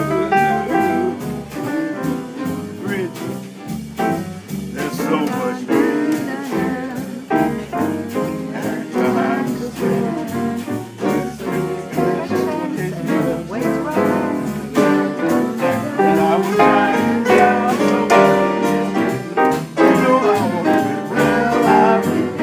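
Solo jazz piano playing without a break: a dense, continuous flow of chords and melodic lines.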